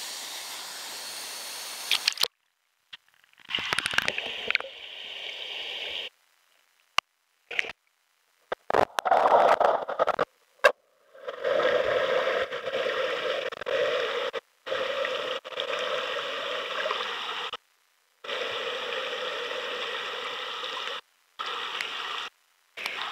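Rushing water of a waterfall pool, steady for the first two seconds. After that it turns muffled and choppy, cutting out to silence again and again, with a few sharp clicks.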